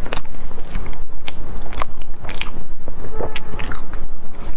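Close-miked eating of a soft cream-filled bread loaf: wet chewing with many short, irregular clicks, and another bite taken near the end.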